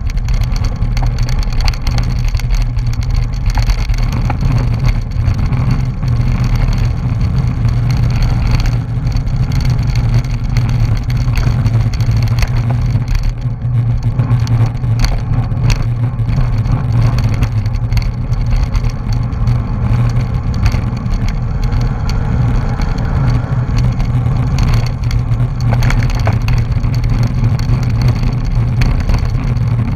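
Steady wind rumbling over a bicycle-mounted action camera's microphone as the bike moves at race speed.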